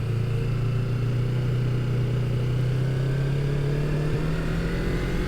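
Motorcycle engine running steadily under way, its pitch rising slowly as it gathers speed.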